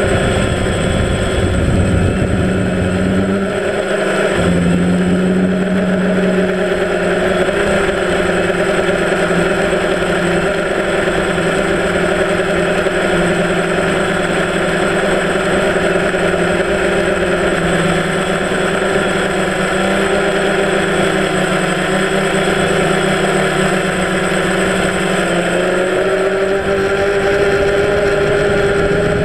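Multirotor drone's electric motors and propellers heard from its own on-board camera: a loud, steady buzzing whine made of several tones that drift slightly in pitch with the throttle, rising a little near the end.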